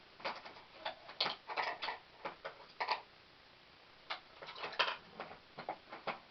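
Paintbrush dabbing and stroking on a stretched canvas: a quick, irregular run of short scratchy taps, pausing for about a second midway before starting again.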